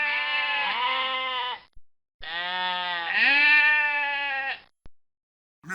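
Animal calls: a long, wavering, pitched call that ends a little under two seconds in, a second lasting about two and a half seconds after a short gap, and a third starting right at the end.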